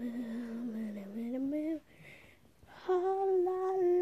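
A girl's voice singing two long wordless notes: the first dips and then slides upward, and after a short pause a second, higher note is held steady.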